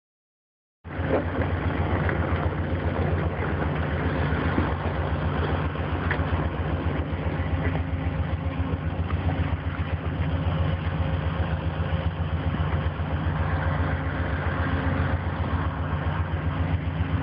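Engine idling steadily with a fast, even throb. It starts abruptly about a second in, after a moment of silence.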